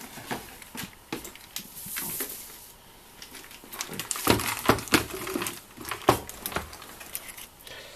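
Handling of a clear plastic parts organiser box and small parts: rustling followed by a series of sharp plastic clicks and knocks, busiest from about four seconds in.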